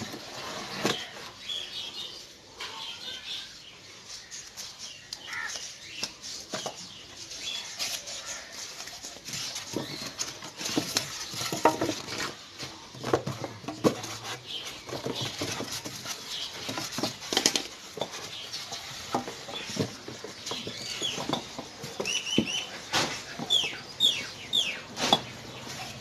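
Metal tools and copper tubing clinking and tapping irregularly during work on a deep freezer's compressor pipework. A bird chirps in a quick run of short calls near the end.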